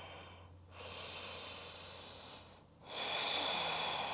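A woman breathing slowly and audibly into a close clip-on microphone: one breath trails off about half a second in, a second runs from about one to two and a half seconds, and a third starts about three seconds in.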